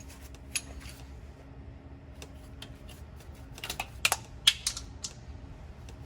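Scattered light clicks and knocks of hand tools and metal parts being handled, with a cluster of sharper clicks about four to five seconds in. A faint low steady hum runs underneath.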